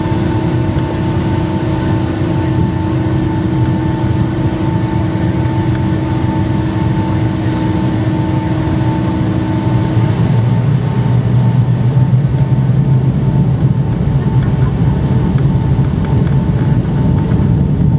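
Cabin noise of a Boeing 757-200 heard from a seat over the wing, its engines idling as a steady hum with a few constant whining tones. About ten seconds in, one of the tones stops and the low rumble grows slightly louder.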